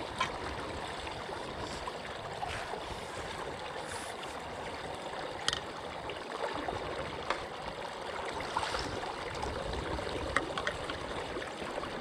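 Pond water running steadily down an overflow drain through its canary-cage trash guard, which has just been cleared of debris so it flows again. A few light splashes or knocks come from a pole in the water.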